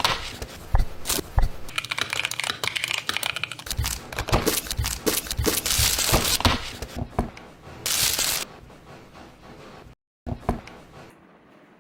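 Keyboard packaging being unboxed: plastic and paper crinkling and tearing, with scattered clicks and knocks as the box and its contents are handled. A louder rip comes at about eight seconds.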